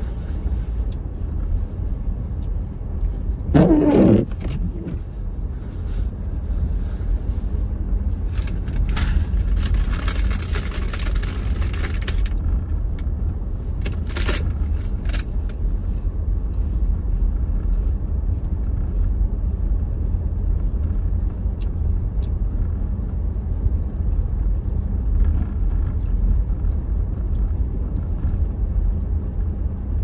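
A car driving slowly on a snow-covered street, heard from inside the cabin as a steady low rumble. About four seconds in there is a brief loud sound with a wavering pitch. From about nine to twelve seconds in there is a stretch of hissing scrape.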